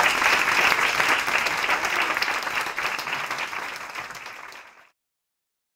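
Audience applauding, the clapping fading and then cutting off about five seconds in.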